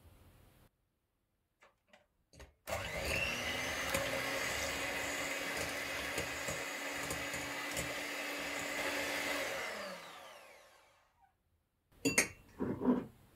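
Electric hand mixer beating eggs in a glass bowl. After a few small clicks it starts about two and a half seconds in, runs steadily for about seven seconds, then winds down with its pitch falling. A few sharp knocks come near the end.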